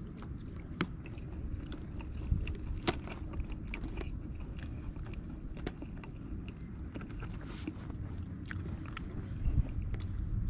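Someone chewing fried white perch, with small mouth clicks and smacks scattered through, over a steady low rumble.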